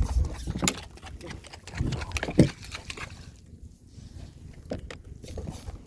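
Wind rumbling on the microphone, with water splashing and a few knocks as a hooked fish is brought up beside the boat; quieter after about three seconds.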